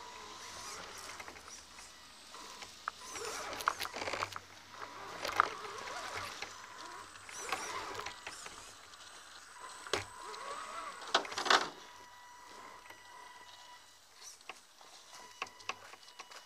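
Electric drivetrain of an RC scale crawler heard through its onboard camera as it crawls over rocks and roots: a steady thin whine with a few rising and falling revs, and scattered knocks and clatter from the chassis and tyres, the loudest pair about eleven seconds in.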